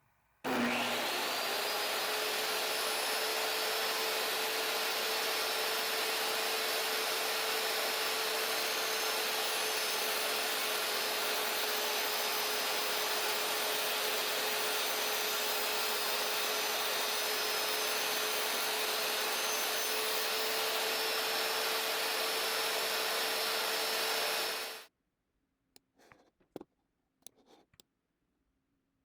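An electric motor-driven tool, such as a sander or a shop vacuum, starts up about half a second in. It runs steadily with a constant hum for about 24 seconds, then stops abruptly. A few light clicks and taps follow near the end.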